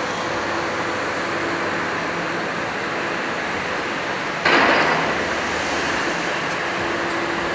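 Old FMC Link-Belt crawler crane's Cummins diesel engine running steadily. About four and a half seconds in, a sudden loud rush of noise breaks in and dies away over about a second.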